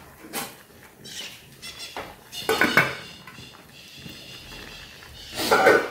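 Lid set on an aluminium cooking pot, clattering twice, about two and a half seconds in and again near the end, with a short metallic ring after the first.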